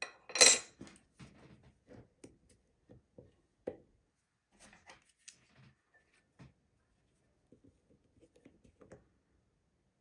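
Steel lock-picking tools working in a brass euro cylinder: a tension wrench and a flat hook pick clattering and scraping in the keyway. There is a loud metallic clatter about half a second in, then scattered light clicks and scrapes as the pins are picked.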